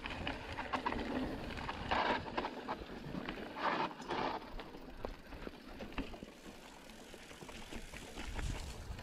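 Specialized Epic mountain bike rattling down a rough dirt trail: tyres crunching over gravel and stones with the frame and drivetrain clattering, and wind rumbling on the microphone. Two louder bursts of noise come about two and four seconds in, and the ride grows quieter as it slows.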